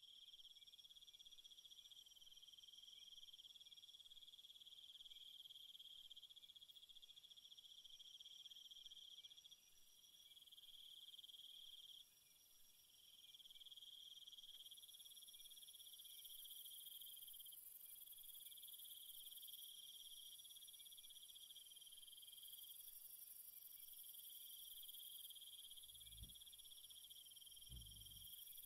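Near silence with a faint, steady high-pitched cricket trill that breaks off for short pauses now and then. Two soft low knocks come near the end.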